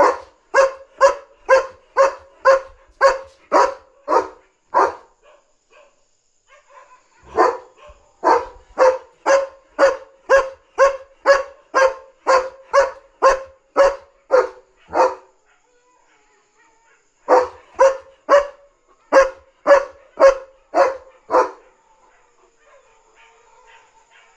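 German Shepherd alarm-barking at a dog outside: three long runs of loud, evenly paced barks, about two a second, with short pauses between runs and the last run stopping a few seconds before the end.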